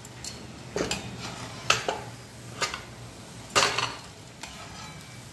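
Metal slotted spoon clinking against a steel kadai and a steel strainer as deep-fried battered cauliflower is lifted out of the hot oil, about four sharp clinks roughly a second apart over a faint, steady sizzle of frying oil. The crisp-fried pieces make a clear clatter as they drop into the strainer.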